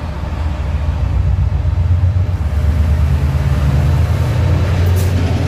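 A Class 68 diesel locomotive hauling loaded container wagons passes close by: a deep engine drone and wheel rumble build as it approaches and stay loud as it goes past. A single sharp click comes near the end.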